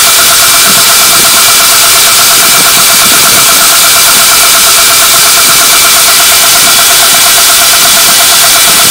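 Belt grinder running at speed, a loud, steady whir with a high hiss from the abrasive belt, while a high-speed steel drill bit is ground against it to sharpen the tip.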